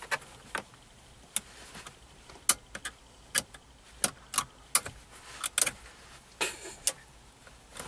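Irregular sharp metal clicks and short scrapes as two thin screwdrivers are pushed and worked in the release holes of a car radio head unit, prodding the unit's plastic fascia and hidden retaining catches to unlatch it.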